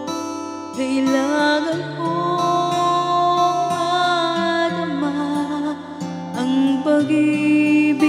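A woman singing a Tagalog love ballad over an instrumental backing track, holding long notes with vibrato.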